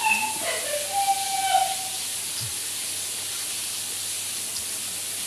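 Steady hiss of food frying in a pan, with a few short, high whining calls in the first two seconds.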